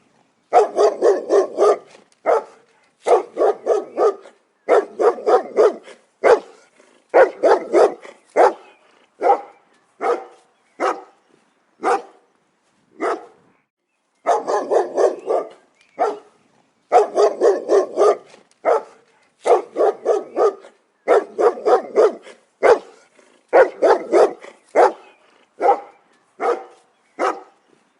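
A dog barking over and over in quick volleys of several barks each, with short pauses between volleys and a longer pause about halfway through.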